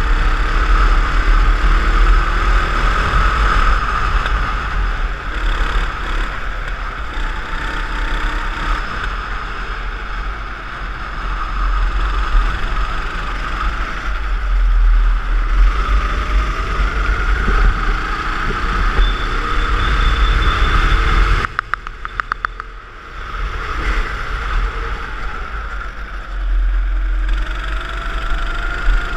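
Go-kart engine running at speed on the track, its note rising and falling with throttle through the corners, with wind buffeting the onboard microphone. About three-quarters of the way through the engine and wind drop away sharply for a couple of seconds, then build again.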